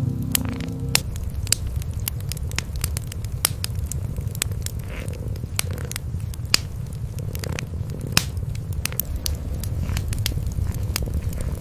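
Wood fire crackling with sharp, irregular pops over a steady low cat purr.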